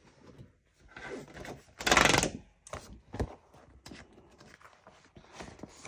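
Handling of a disc-bound planner: paper rustling with a few light clicks and knocks, the loudest a brief burst of rustling about two seconds in.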